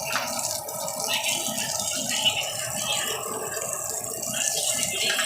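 Fish frying in hot oil, sizzling with a steady, dense crackle.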